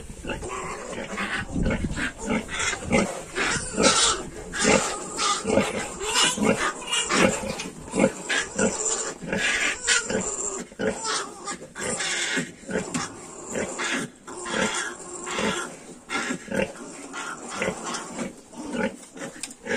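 Yorkshire sow and her three-week-old piglets grunting and squealing while the piglets suckle, a dense run of short, irregular calls.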